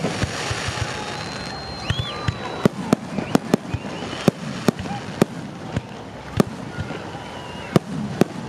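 Aerial fireworks shells bursting in an irregular string of sharp bangs, roughly one every half second, over a steady hiss.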